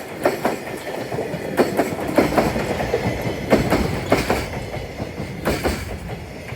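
A freight train of Koki container wagons rolling past, its wheels knocking over the rail joints in quick pairs every second or so over a steady rumble.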